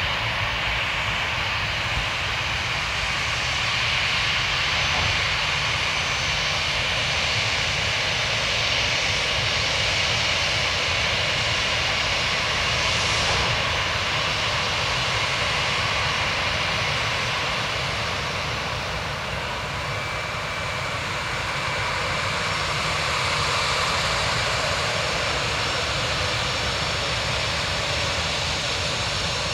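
Airbus A320-214's CFM56 turbofan engines running at low thrust as the airliner taxis. The hiss and rumble hold steady throughout, with no spool-up.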